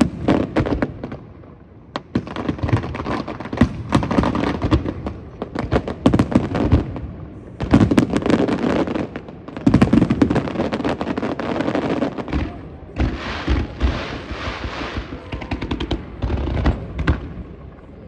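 Aerial fireworks bursting: dense, rapid crackling and popping from many shells at once, fast like machine-gun fire, coming in waves a few seconds long with brief lulls between them.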